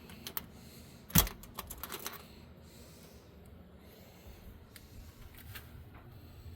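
A series of sharp clicks and knocks, with one loud knock about a second in followed by a quick run of clicks, then a few scattered clicks.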